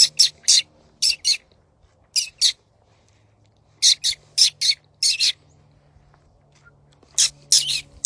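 Jays calling: short scratchy calls in quick pairs and triplets, repeated several times, with a pause of a few seconds in the middle.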